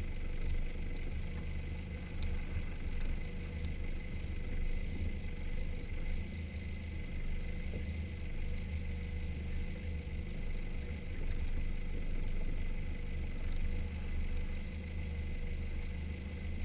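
Four-wheel-drive's engine running steadily at low revs as it crawls along an off-road dirt and grass track, a continuous low rumble.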